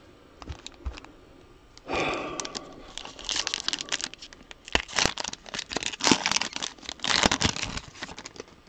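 Plastic trading-card packaging being torn open and crinkled by hand, starting about two seconds in after a few faint clicks, with dense crackling continuing until near the end.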